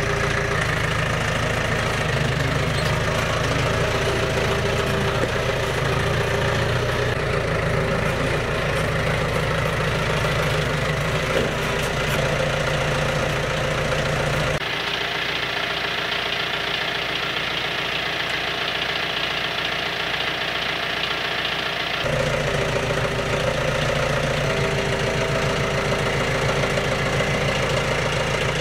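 John Deere 1070 compact tractor's diesel engine idling steadily. For several seconds in the middle the low rumble drops away, then returns.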